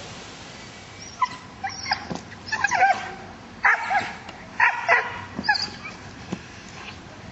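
Malinois-cross working dog giving a quick string of high-pitched yips and whining barks for about four seconds, starting about a second in, then falling quiet.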